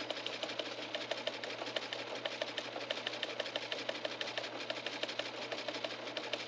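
A small machine running with a rapid, even clicking, several clicks a second, over a steady low hum.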